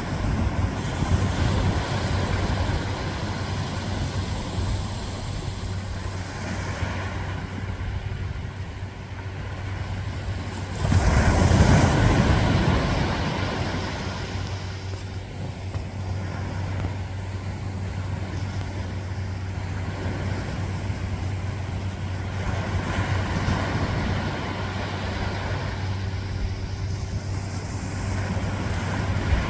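Ocean surf washing onto the beach in a continuous rushing wash, with one wave breaking loudly about eleven seconds in and then receding. A steady low hum runs underneath.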